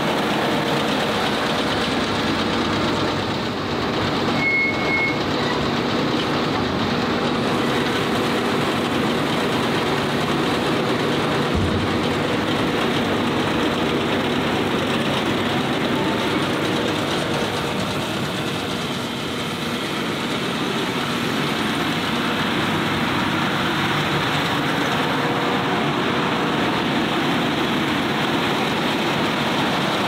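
Tractor engine running steadily under load while pulling a New Holland round baler, with the baler's pickup and bale chamber working through windrowed hay.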